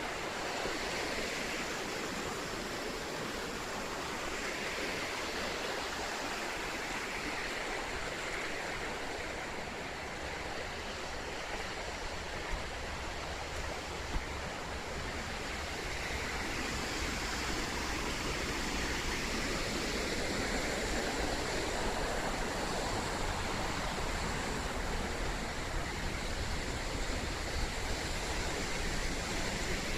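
Rushing water of river rapids or a waterfall: a steady, even roar of flowing water, with the deep rumble growing somewhat louder about halfway through.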